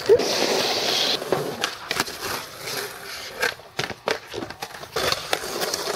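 Skateboard wheels rolling over concrete, with a hiss in the first second, then scattered irregular clacks and knocks from the board.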